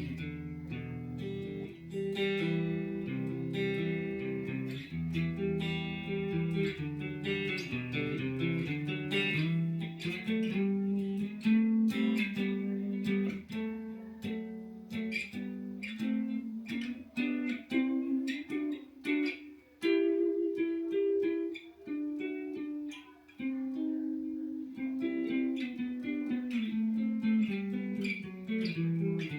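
A guitar being played: a run of plucked notes and chords, with a couple of short breaks in the playing about two-thirds of the way through.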